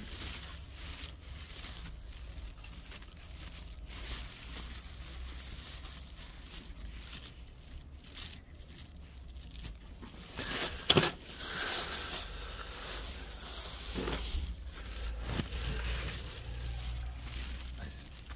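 Thin plastic bags rustling and crinkling as they are handled, with one sharp click partway through.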